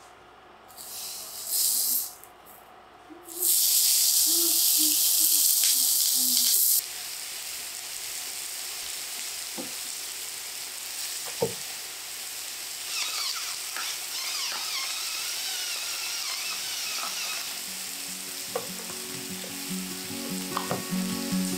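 Scored pork belly frying on a hot cast-iron griddle pan: a loud hissing sizzle from about 3.5 s in drops to a steadier, quieter sizzle with crackles after about 7 s.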